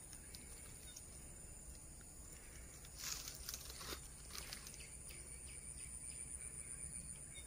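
Faint outdoor ambience with a steady high insect drone. About three seconds in, a few brushing, crunching footsteps sound through grass.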